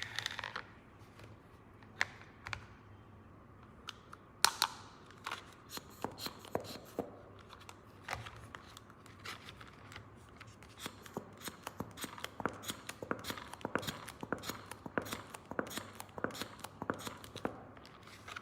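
Small plastic toy pieces and packaging being handled: scattered light clicks and rustles that come thicker in the second half, with a sharper snap about four and a half seconds in.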